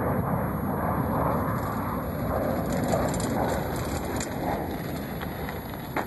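Wind rumbling and buffeting on the microphone, a steady low rush, with a single sharp click near the end.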